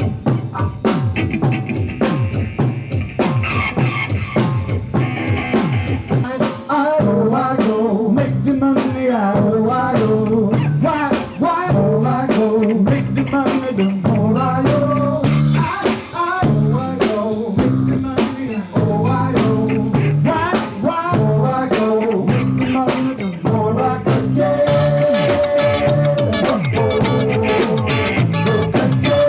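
A live band playing a world beat groove on a drum kit, bass and guitar, with a voice singing over it.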